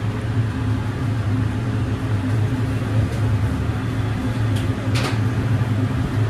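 A steady low mechanical hum, with a short clatter about five seconds in.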